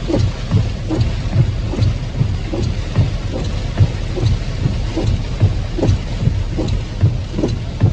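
Strong storm wind buffeting the microphone: a loud, continuous low rumble broken by rapid, irregular thumps, with a hiss above it.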